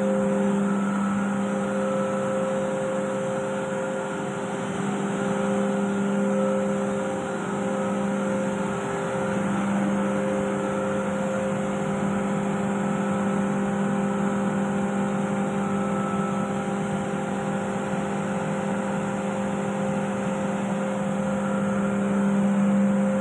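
COAIRE rotary screw air compressor running loaded: a steady mechanical hum with a low droning tone.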